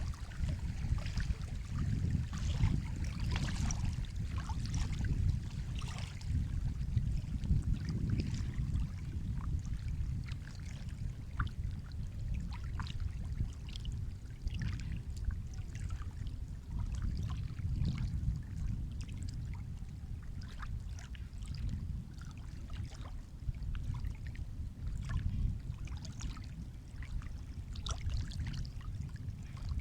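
Sea water washing and lapping: a continuous low rumble with many small splashes and trickles over it.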